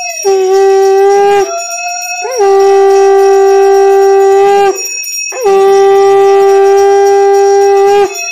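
Conch shell (shankha) blown in three long steady blasts, the first about a second long and the next two longer, each opening with a quick flick up in pitch. A hand bell keeps ringing, heard in the gaps between blasts.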